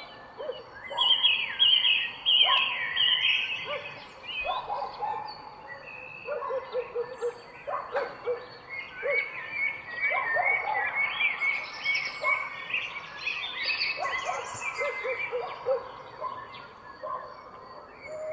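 Several birds chirping and calling over one another, busy in places, with a thin steady high tone underneath.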